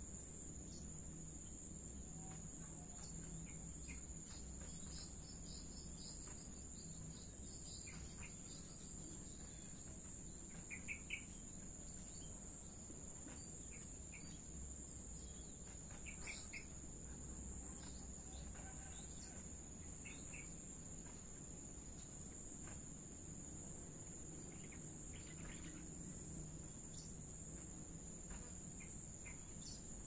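Crickets trilling steadily at a high pitch, with scattered short bird chirps, the loudest a few about a third and halfway in, over a low rumble of distant traffic.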